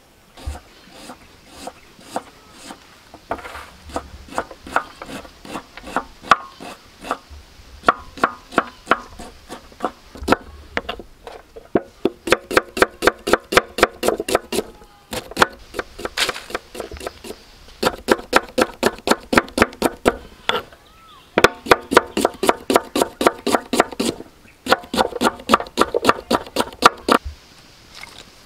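Knife slicing onions on a wooden chopping board: quick runs of sharp chopping strokes, about five or six a second, in bursts of a few seconds with short pauses between them.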